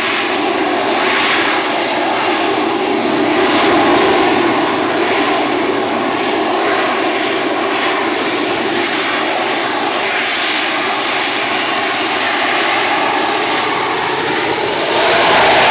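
An aircraft engine running steadily during a flying display, swelling slightly in loudness about four seconds in and again near the end.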